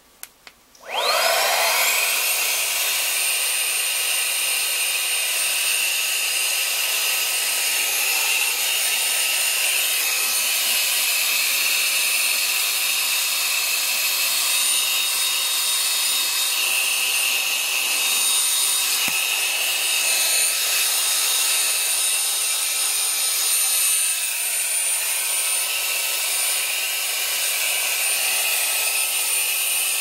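Baseus A3 cordless car vacuum running in blower mode, blowing dust out of a computer case. After a couple of clicks its motor spins up about a second in with a rising whine, then runs steadily with a high-pitched whine and rush of air.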